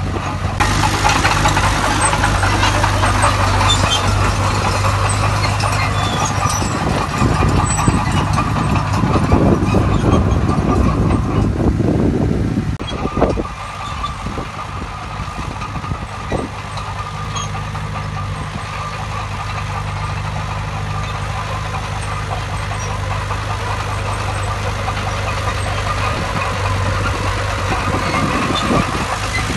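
Heavy diesel machinery engine running, louder and rougher for the first dozen seconds, then dropping to a steadier, quieter run.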